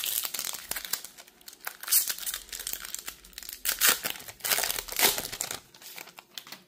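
Foil wrapper of a Magic: The Gathering collector booster pack crinkling and tearing as it is ripped open by hand, in several crackly bursts that die away near the end.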